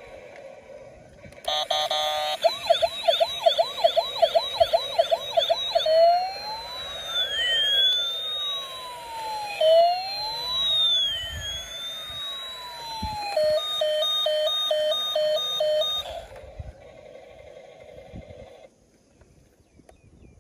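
A toy vehicle's electronic siren sound effect runs through three patterns. First a fast yelp rises and falls about three times a second. Then a slow wail sweeps up and down. From about 13 seconds in, a two-note hi-lo alternates until it stops about 16 seconds in.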